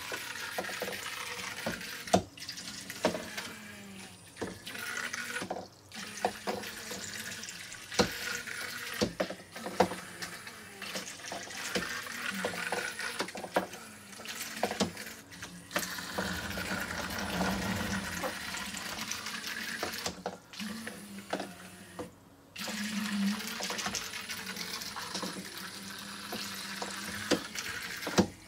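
Micro Boats toy speedboats' tiny propellers churning and splashing water as they run around a plastic water track, with frequent light clicks and knocks of plastic throughout.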